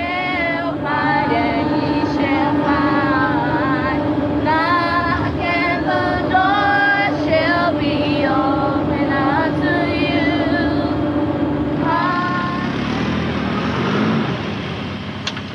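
Voices singing without accompaniment over the steady drone of a bus engine. About twelve seconds in the singing stops, leaving only steady vehicle noise.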